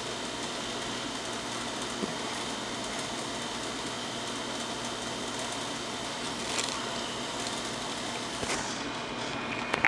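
Steady background hiss, with a few faint paper rustles and light taps as a printed leaflet is handled.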